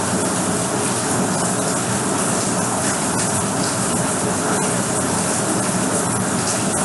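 Steady rain falling, an even hiss with a few sharper drip ticks.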